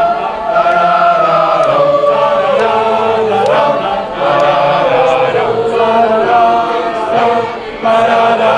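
Boys' choir singing a chant-like song together in the crowd, many voices holding long notes and sliding from one pitch to the next, with a short break near the end.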